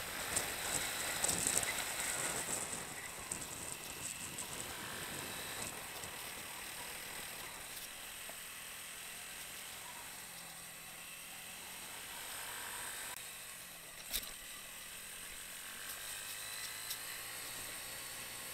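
Motorcycle riding over a rutted dirt track: the engine running low under a steady rattling clatter from the bike over the bumps, busiest in the first few seconds, with one sharp knock about fourteen seconds in.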